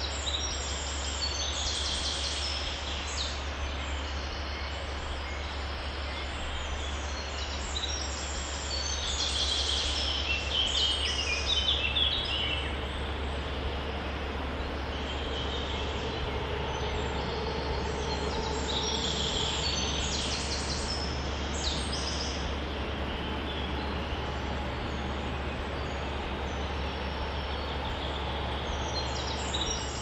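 Steady outdoor noise with a constant low rumble, with clusters of high bird chirping that come and go, busiest about a third of the way in and again past the middle.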